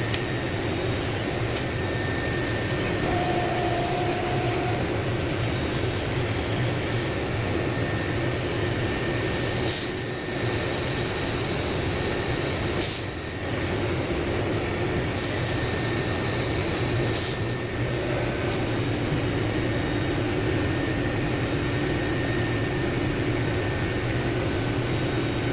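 Steady fan hum with a few fixed tones, broken by three short, sharp clicks about ten, thirteen and seventeen seconds in.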